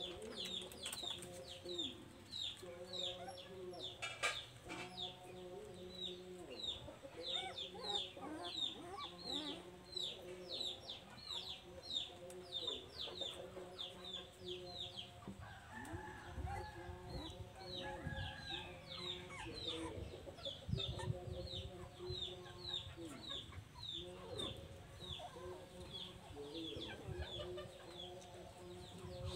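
Chickens clucking, with a steady run of short, high, falling peeps about two or three a second.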